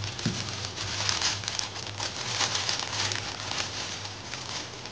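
Plastic mailer bag and bubble-wrap packaging being handled and pulled open by hand: continuous irregular crinkling and crackling of plastic.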